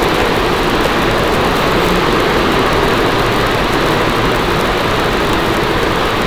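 Steady, loud rushing noise without words, unchanging throughout, with no clear beat or tone.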